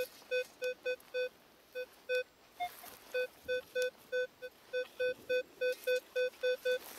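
Metal detector beeping repeatedly at one pitch, short beeps about three a second. The beeps pause briefly after about two seconds, with one higher blip in the gap. It is signalling more buried metal targets, more coins, in the same spot.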